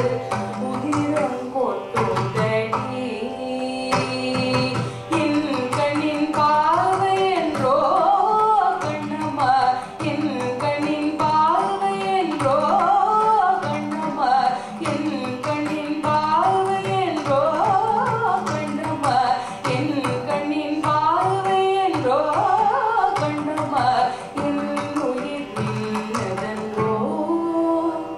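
Female Carnatic vocalist singing a song over a steady drone, accompanied by a mridangam played with frequent rhythmic strokes.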